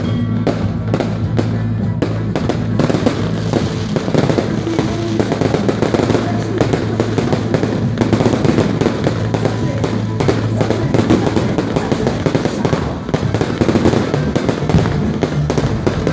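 Fireworks going off in quick succession, a continuous run of crackles and bangs. Music plays underneath, its sustained low notes dropping out about two-thirds of the way through.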